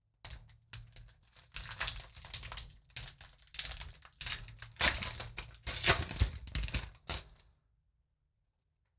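Foil Magic: The Gathering booster pack wrapper crinkling and tearing as it is ripped open, a run of irregular crackling rustles that stops about seven and a half seconds in.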